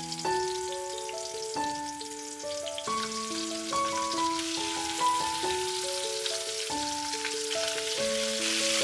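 Yellowtail fish frying in hot oil in a cast iron skillet, a steady crackling sizzle, under background music playing a simple melody.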